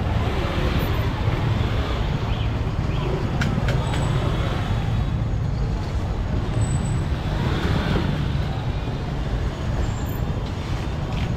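Steady street ambience: traffic rumbling past, with indistinct chatter from people around.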